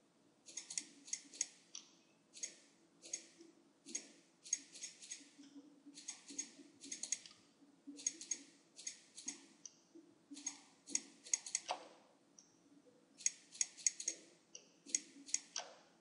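Computer mouse clicking in quick bursts of two to five clicks, about a dozen bursts, sharp and close to the microphone.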